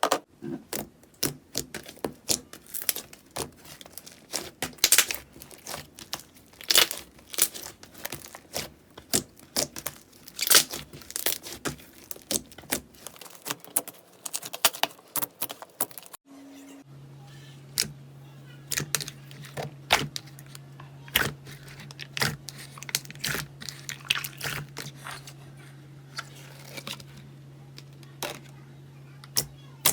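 Slime being squeezed and pressed, giving many sharp, irregular clicks and pops. About halfway through the sound changes abruptly to another batch of popping slime with a steady low hum under it.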